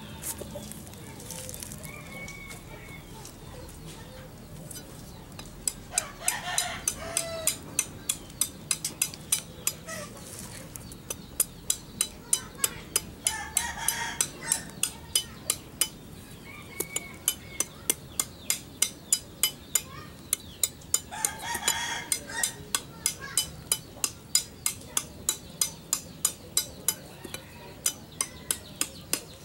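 A large knife chopping at a coconut's husk on a wooden block, in sharp strikes about two to three a second that start about six seconds in. A rooster crows three times, about seven seconds apart.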